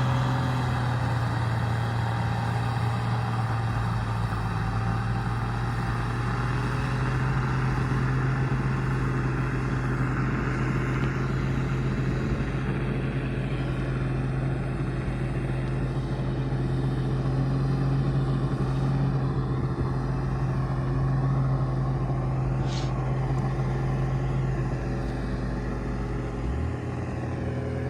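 Engine of heavy earthmoving machinery running steadily with a constant low hum.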